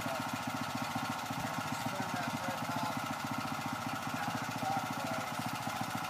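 Small engine of a portable band sawmill running steadily at idle, with a fast, even firing pulse and no load from a cut.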